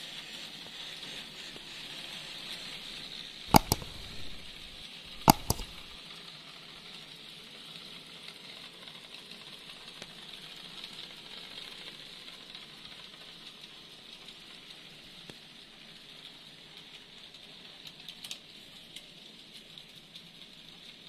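N scale model train running along the track with a steady, even hiss. A few seconds in come two loud, sharp clicks about two seconds apart, each one doubled.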